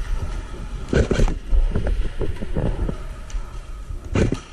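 Irregular short knocks and clicks, strongest about a second in and again near the end, over a steady low rumble.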